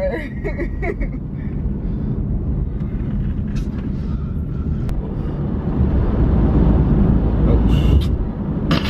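Car cabin noise while driving: a steady low rumble of engine and tyres on the road, growing louder about six seconds in, with a brief rustle near the end.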